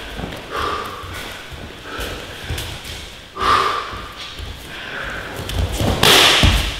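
Thuds of bare feet and blows on the training mats during a full-contact fight, with sharp breaths. The loudest flurry of thuds comes near the end.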